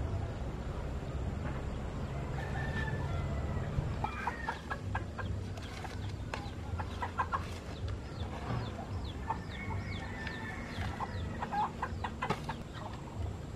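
Chickens clucking and calling in short, sharp bursts, with two longer drawn-out calls, over a low steady rumble.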